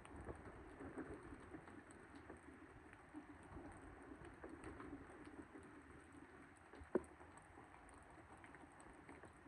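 Faint, steady rain from a passing thunderstorm, with small scattered drips and one sharp tap about seven seconds in.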